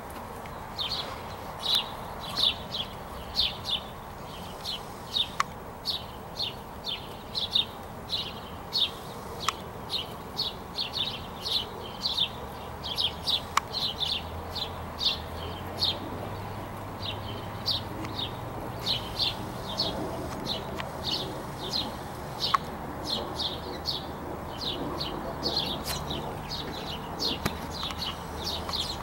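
A small songbird chirping over and over, short high chirps two or three a second.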